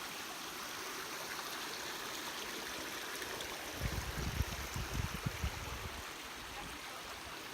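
Flowing water rushing steadily, with a few low rumbling thumps about halfway through.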